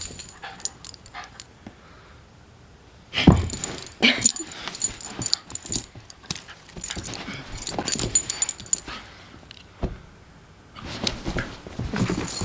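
Beagle puppy play-wrestling and mouthing a person's hands, giving short yips and bark-like noises among scuffling and clicking sounds. The loudest sound comes about three seconds in.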